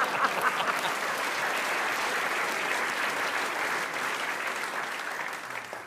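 Audience applauding, with a little laughter at the start; the clapping stays steady and then dies away near the end.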